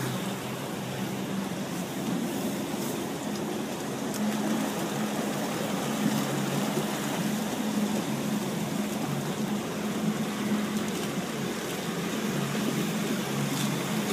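A boat engine running at a steady drone, with a continuous rush of water and wind over it.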